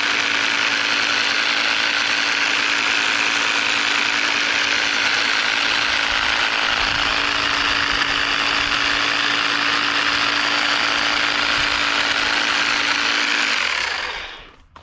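EGO battery-powered pole hedge trimmer running steadily, its reciprocating blades trimming a burning bush, with a constant mechanical chatter and hum. It winds down and stops near the end.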